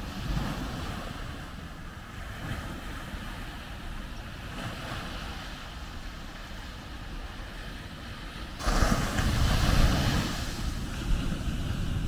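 Small ocean waves breaking on a sandy beach and washing up the shore. One louder wave breaks suddenly about two-thirds of the way through.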